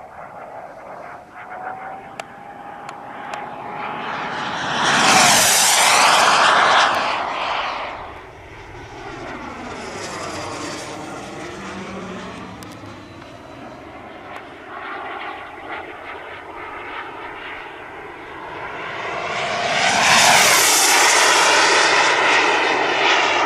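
Evo-Jet Booster 160+ model jet turbine, a 44 lb thrust unit, powering a radio-controlled King Cat jet in flight. Its whine swells into two loud passes overhead, about five and about twenty seconds in, and is quieter between them.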